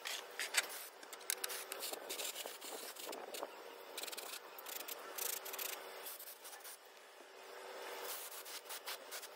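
Gravity-feed paint spray gun hissing in repeated short bursts as its trigger is pulled, spraying basecoat.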